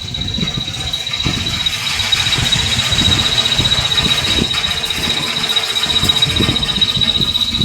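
Strong wind gusting and buffeting the microphone, with a rushing hiss that swells about two seconds in. A steady high-pitched tone sounds all along.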